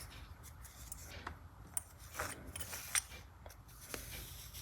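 Scattered light clicks and taps as small tools and their cases are handled, over a steady low hum.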